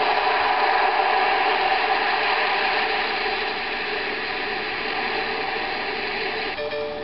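Cloud B Dozy Dolphin sound machine playing its ocean-waves sound, a steady rushing hiss of surf. Near the end it switches abruptly to its soft tranquil-music track.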